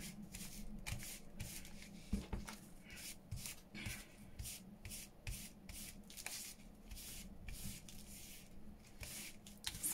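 An ink applicator dabbing and rubbing ink onto a white craft piece to tone down its whiteness, in quick repeated scuffing strokes about three a second.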